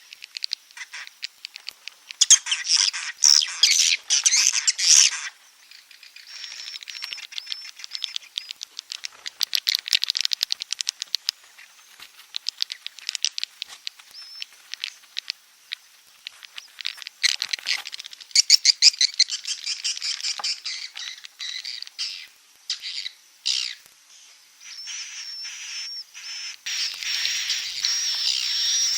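Swiftlet call lure recording: edible-nest swiftlets' fast, high, clicking chatter in bursts separated by short pauses, turning into a steadier high trill near the end. This is the sound played in swiftlet houses to draw birds in to roost and nest.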